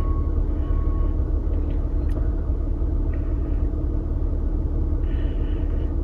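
Toyota RAV4's 3.5-litre 2GR-FE V6 idling steadily, its rough idle gone after a failed number 2 ignition coil (code P0352) was replaced. A single light click sounds about two seconds in.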